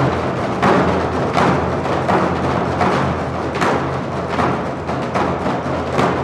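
Music in which Korean buk drums are struck in a steady beat, about one stroke every three quarters of a second, over a sustained low accompaniment.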